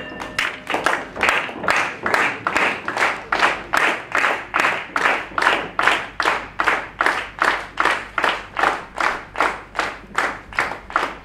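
Audience clapping in unison, a steady rhythm of about three claps a second.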